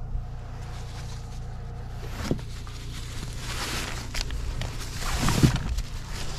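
Plastic bags rustling as they are lifted out of a wooden box and carried, with footsteps on gravel; the handling noise comes in several bursts, loudest about five seconds in. A steady low hum runs underneath.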